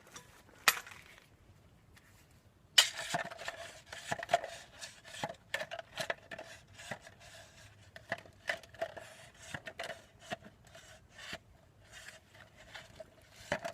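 Metal tools and brake hardware clinking and clicking irregularly while a brake caliper bolt is worked on, with a sharp knock about three seconds in.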